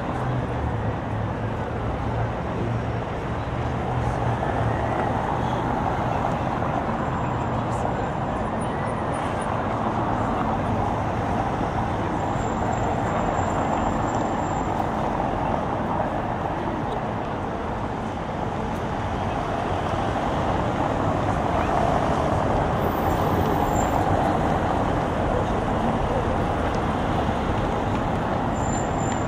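Steady city traffic noise from cars and buses, with a low engine rumble that is stronger in the first few seconds.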